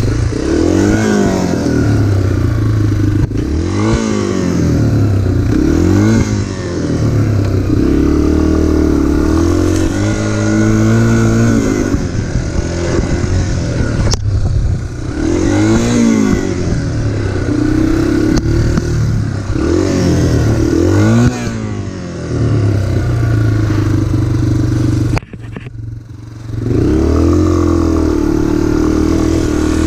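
Off-road motorcycle engine running hard, its pitch rising and falling over and over every couple of seconds as the throttle opens and closes. The sound dips sharply for about a second near the end, then picks up again.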